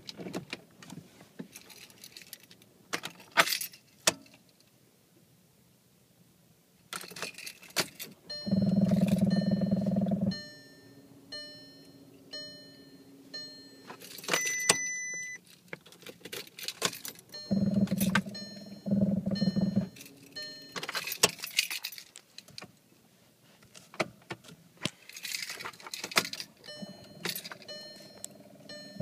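Car keys jangling at the ignition of a 2011 Volkswagen Tiguan, with clicks as the key is worked. Three loud spells of low buzzing of one to two seconds each, the longest about eight seconds in, over an even run of short high ticks at about one and a half a second through the second half.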